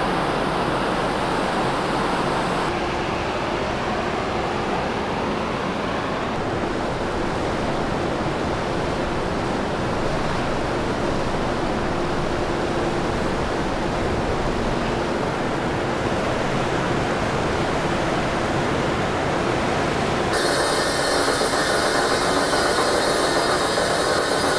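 Steady rushing noise on a car ferry's open deck, wind and the ship's machinery, with a faint steady hum. The last few seconds turn brighter and hissier.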